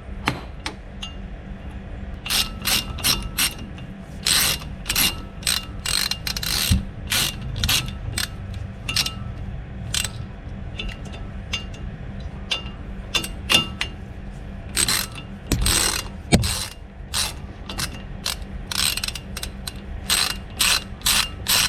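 Hand ratchet clicking in repeated bursts as it drives a bolt into a threaded hole of a brake rotor, used to push a rotor that is stuck on the hub off it.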